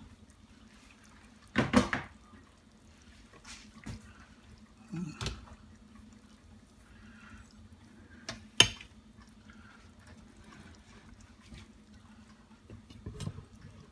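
Instant Pot lid being opened and lifted off once the pressure has been released: scattered knocks and clicks of the lid against the pot, loudest about two seconds in and again about eight and a half seconds in, over a low steady hum.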